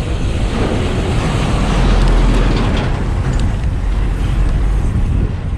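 Road traffic heard from a moving bicycle, with wind rumbling on the microphone; the noise swells about two seconds in as a vehicle passes, then eases.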